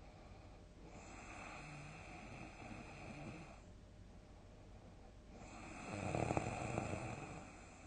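A person snoring in deep sleep. First comes a softer snoring breath about a second in. Then, about six seconds in, comes a loud, deep snore that fades away near the end.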